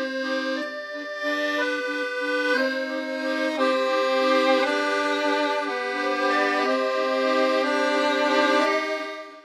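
Musette-style accordion music: a melody of held notes over sustained chords, fading out near the end.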